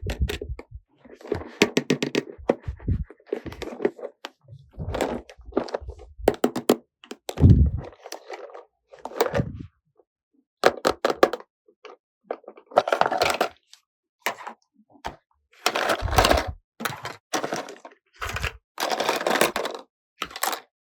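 Small plastic toy pieces being handled and set down: irregular clicks, clacks and light knocks, some in quick clusters with a low thump.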